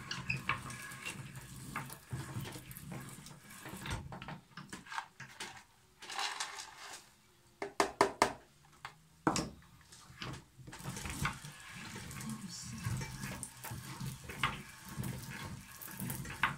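Hand-cranked metal meat grinder grinding walnuts: irregular metal clatter, scraping and knocking as the crank turns. About eight seconds in, a quick run of sharp clicks as walnut pieces are tipped from a plastic tub into the metal hopper.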